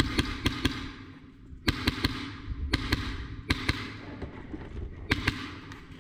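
Airsoft guns firing: sharp cracks in short groups of two or three, with a pause of about a second between groups.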